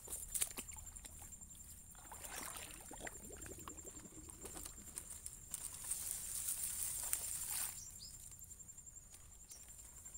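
Palm fronds rustling and muddy water sloshing and splashing as a wire-mesh fish trap is pulled up from under them in a shallow stream, louder about two seconds in and again from about six to seven and a half seconds.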